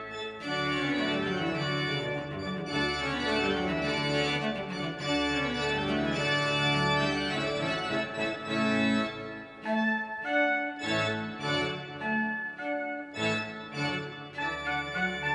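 Church pipe organ playing, holding sustained chords over a moving bass line, then short detached chords from about ten seconds in.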